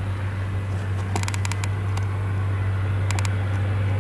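Claas Jaguar forage harvester and Case IH tractor running together while chopping maize into the trailer, a steady low engine drone under a noisy rush. Two short bursts of rapid clicking rattle come through, about a second in and again past three seconds.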